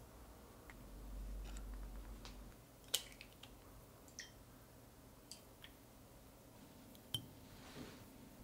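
Eggs cracked and pulled apart by hand over a glass bowl: a sharp crack of eggshell about three seconds in, then light clicks and ticks of shell, with another sharp click a little after seven seconds.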